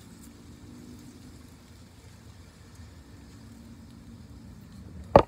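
Low steady rumble with a faint engine-like hum that fades in and out. Just before the end, one sharp, loud knock.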